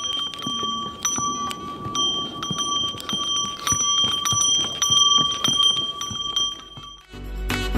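A bell on a pack animal's harness ringing continuously as it walks, with irregular clicks and knocks of hooves on a rocky trail. Music comes in near the end.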